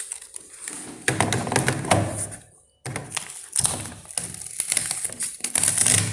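Handling noise: a dense run of taps, clicks and rustling in two stretches, with a brief pause about two and a half seconds in.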